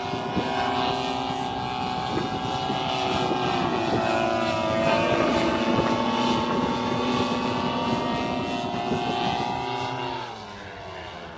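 AC Nitro 200 paramotor's two-stroke engine running as it flies past. Its pitch dips about four seconds in, then falls and fades near the end as it passes away.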